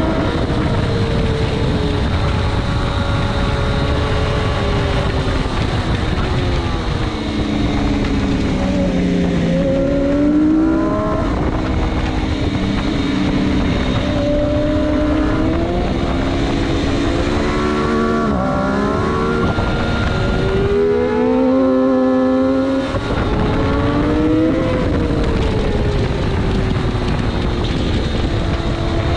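600 Superstock racing motorcycle's engine at high revs, heard onboard: its pitch repeatedly falls as it brakes and shifts down for corners, then climbs again under hard acceleration.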